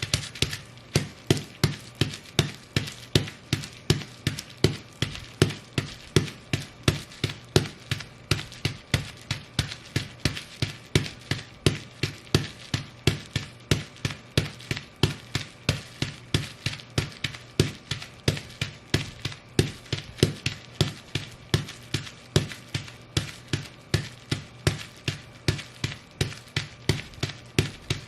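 Ugg boots stomping on bubble wrap in a steady rhythm of about three stomps a second, each a sharp crunching impact.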